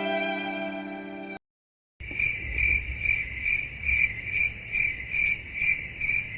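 Sad violin music ending about a second and a half in, then after a short gap a steady cricket chirping, a little over two chirps a second: the stock 'crickets' sound effect used for an awkward silence.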